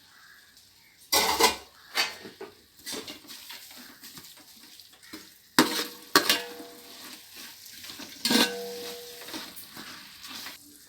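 Metal spoon clanking and scraping against a cooking pot while the masala is stirred after mint and coriander are added, with a low sizzle of frying between strokes. Several sharp clanks, about a second in, around six seconds and just after eight seconds, some leaving a short metallic ring.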